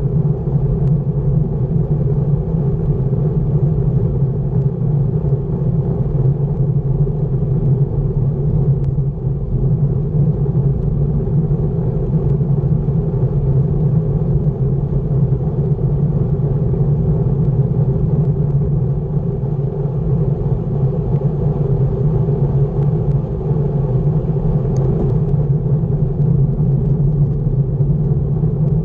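Steady rumble of wind and road noise on a camera mounted on a road bicycle riding at over 20 mph on asphalt.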